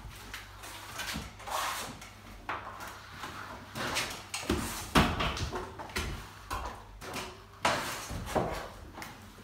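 Repeated scraping sweeps of a plastering tool drawn over a wet gypsum Multi-Finish skim coat, flattening and filling it, with a few sharp knocks, the loudest about halfway through and near the end.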